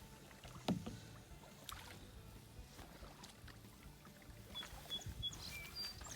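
Kayak being paddled on a small pond: quiet paddle strokes and water sounds, with a sharp knock about a second in, and a few short high bird chirps near the end.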